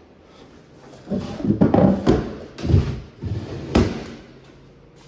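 Wooden drawers sliding wood on wood as they are pulled out and pushed shut, with several knocks as they close, starting about a second in.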